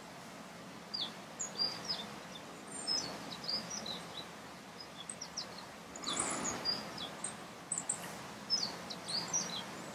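Small birds chirping, with many short high calls scattered throughout, over a faint steady outdoor hiss. A brief rush of noise swells up about six seconds in.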